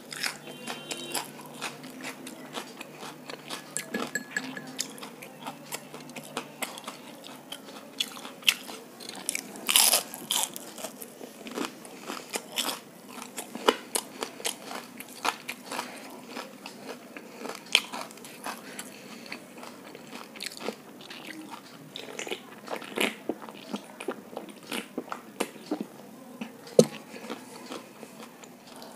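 Close-miked crunching and chewing of crispy fried food, many short irregular crunches with a louder run of them about ten seconds in.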